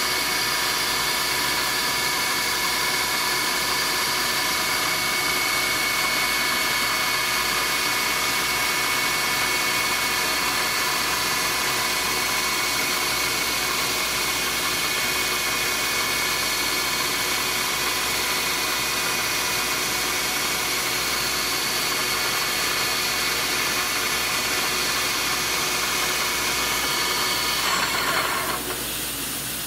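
CNC milling machine spindle running with an end mill cutting into the BMW S50 cam tray, milling a new oil slot: a steady whine of several tones over a hiss. Near the end the tones stop and the sound drops away.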